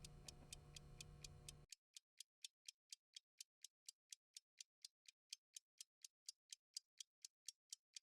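Clock ticking fast and evenly, about four to five ticks a second. A low steady hum under it cuts off suddenly about two seconds in, leaving only the faint ticks.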